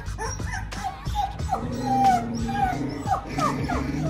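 Siberian husky puppy whimpering in a run of short, high cries while its mother mouths it, with background music underneath.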